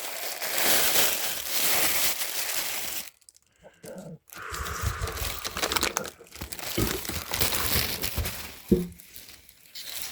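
Packing material crinkling and rustling as a hard guitar case is handled and turned around, with a pause about three seconds in and a few light knocks later on.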